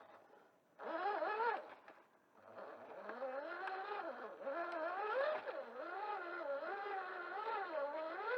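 Electric motor and gearbox of an RC rock crawler whining, the pitch rising and falling with the throttle as it crawls, with a short pause about two seconds in.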